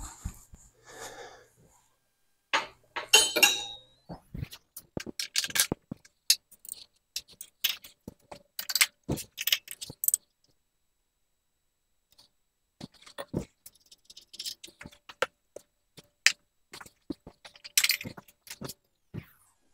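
Irregular small metal clicks and clinks of tools being handled as a dial test indicator is taken out of a milling machine's spindle and put away among metal tooling.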